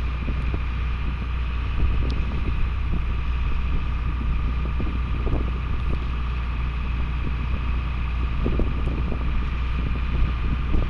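Wind buffeting the camera's microphone: a steady low rumble, with a faint steady hum higher up.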